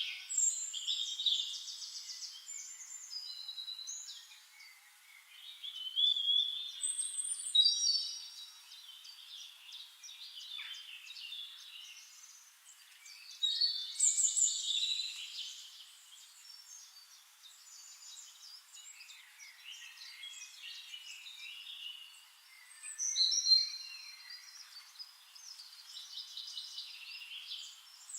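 Several songbirds singing together, overlapping phrases of chirps, whistles and rapid trills, with louder bursts of song every several seconds.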